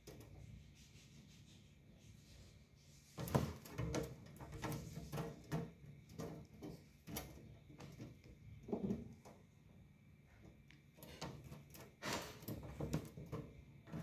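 A parrot clambering about a wire-mesh cage, its feet and beak rattling and clicking against the metal wire in irregular bursts. It is busiest from about three seconds in and again near the end.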